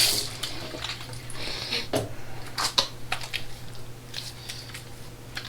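Double-edge safety razor (Edwin Jagger DE89) scraping through lathered stubble in a series of short upward strokes, the loudest about two seconds in.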